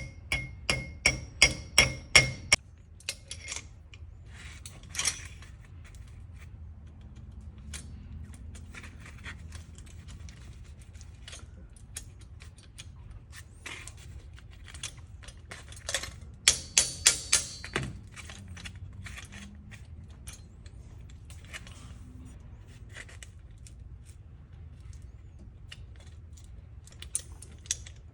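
Repeated sharp metal-on-metal taps with a ringing tone, about four a second, in two short runs, as a part of a Delco-Remy starter is tapped into place. Scattered light clicks of parts being handled come between the runs, over a low steady hum.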